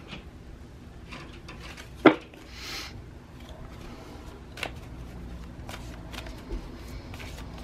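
Tarot cards being shuffled and handled: scattered light flicks and rustles, with a sharp click about two seconds in followed by a brief swish.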